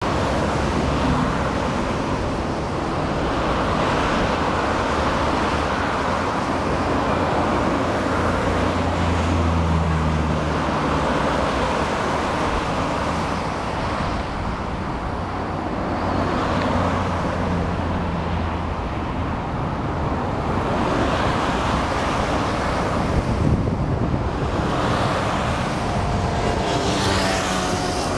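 Jet engine noise of a McDonnell Douglas MD-11 trijet at takeoff power: a steady, loud rumble and roar as it takes off and climbs out. Near the end a sweeping, phasing tone comes in as it passes close overhead.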